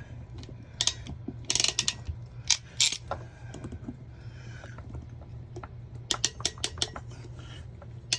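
Metal clicks and clacks of a PEX shutoff valve being fitted and crimped, with a quick run of evenly spaced ratcheting clicks from the crimp tool about six seconds in.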